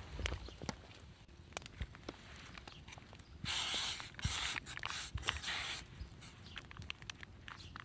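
Rustling and handling noises: scattered small clicks and knocks, with a louder stretch of rustling in four short strokes from about three and a half seconds in to nearly six seconds.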